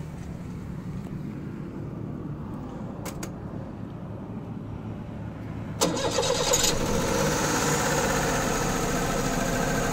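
Mitsubishi Minicab's 660cc three-cylinder engine: after a low hum and a couple of clicks, it starts about six seconds in and settles into a steady run. The seller says this engine is worn out and needs its assembly replaced.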